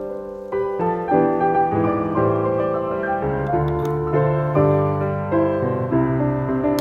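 Background solo piano music, a melody with chords played steadily.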